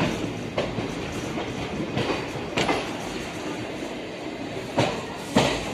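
Jamalpur–Gaya fast passenger train running on the rails, heard from inside a coach at its open door: a steady rumble with the clickety-clack of the wheels striking rail joints. The clacks mostly come in pairs about half a second apart.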